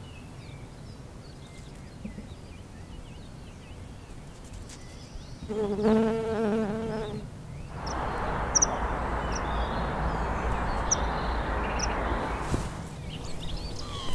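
A flying insect buzzing close by for under two seconds, its pitch wavering. From about eight seconds in comes a steady rush of wind noise with a low rumble, and a few short, high chirps from a small bird.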